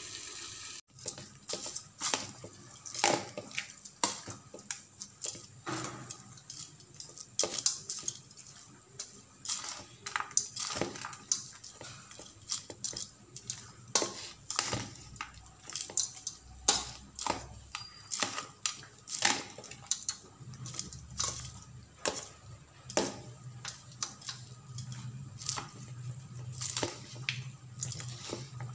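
A metal spoon clinking and scraping against a steel bowl while mixing crumbly seasoned rice rava, with irregular sharp clicks a few times a second.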